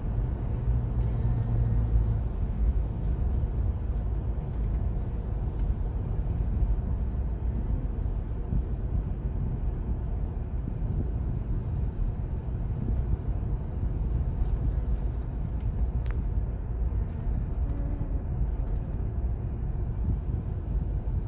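Steady low rumble of a car's road and engine noise, heard from inside the moving car's cabin.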